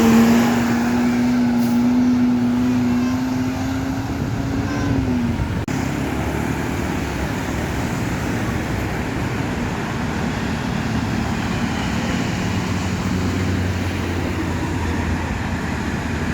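A passing vehicle gives a steady droning tone for about five seconds that slides down in pitch as it goes by. Steady road traffic noise follows.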